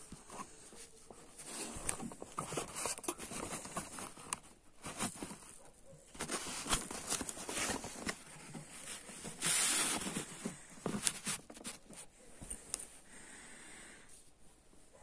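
Cloth rustling and brushing against the phone's microphone, with irregular handling knocks; the rustle is louder for about a second near the two-thirds mark.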